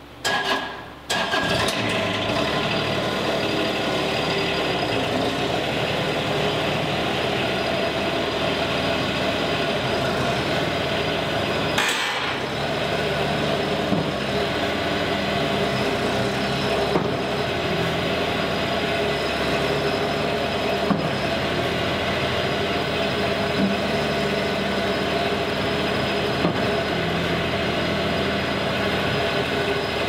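Bobcat MT85 mini track loader's engine being started, catching about a second in after a brief crank, then running steadily.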